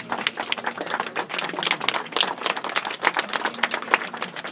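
A small crowd applauding, the individual claps distinct and irregular.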